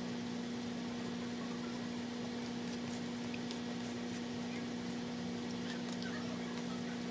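Steady low hum, with a few faint clicks and scrapes of a metal fork cutting food on a paper plate.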